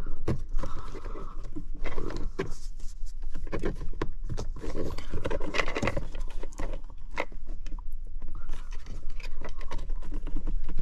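Plastic trim-removal tool scraping and clicking against the hard plastic console trim as it is wiggled into the gap behind a clipped panel. Irregular scrapes and sharp clicks throughout.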